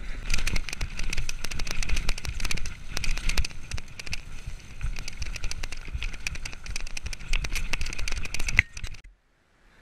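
Mountain bike rattling and clattering over a rough, rocky track: a dense, fast run of knocks and rattles from the bike and its tyres on stones, with a low rumble of wind on the microphone. It cuts off suddenly near the end.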